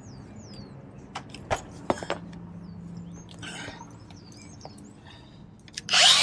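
A few sharp clicks and clinks as a cordless angle grinder and its cutting disc are handled, with faint bird chirps. About six seconds in, the grinder starts and spins up to speed, loud and sudden, to cut away a metal roof support bracket.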